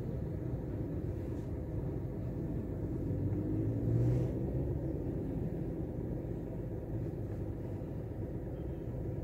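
Toyota Belta's 1KR 1.0-litre three-cylinder engine idling with a steady low rumble, its speed rising briefly about three to four seconds in.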